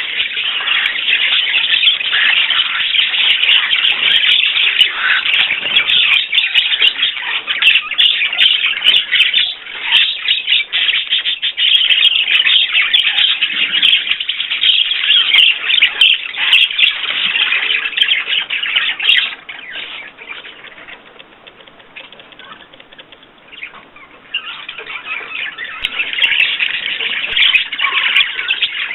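Many small pet birds chirping continuously in a dense, high-pitched chorus. It goes much quieter for about four seconds roughly two-thirds of the way in, then picks up again.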